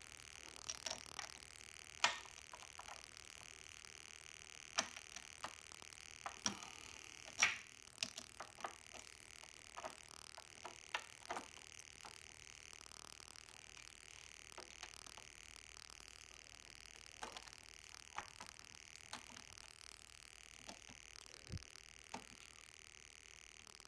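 Roller drive chain of a Yamaha FZ1 clicking and clinking against the front sprocket as it is worked around the teeth by hand, in scattered, irregular clicks.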